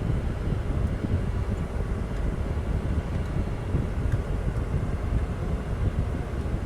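Heavy farm machinery harvesting wheat silage, running steadily with a dense low rumble.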